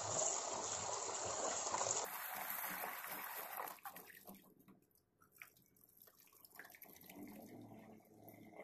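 Tap water running into a stainless steel bowl of diced purple sweet potato as hands swish and rub the pieces clean. About four seconds in the running water stops, leaving quiet trickles and drips as the bowl is tipped to pour the water off.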